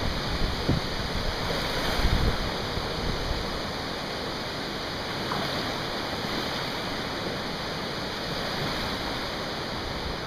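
Fast-moving floodwater rushing steadily, an even wash of noise, with a few bumps of wind on the microphone in the first two seconds or so.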